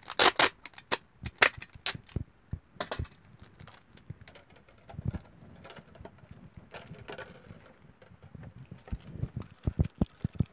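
Thin PET plastic bottle crackling and clicking as it is handled, with adhesive tape being pressed onto its cut flaps. The loudest crackle comes right at the start, and another cluster of clicks comes near the end.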